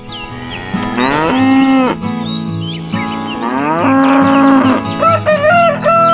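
A cow mooing twice, each moo rising and then held for about a second. Near the end a rooster starts crowing. Light background music runs under both.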